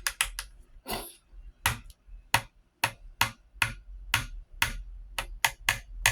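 A spoon knocking against the side of a pitcher while stirring, a sharp clink about twice a second.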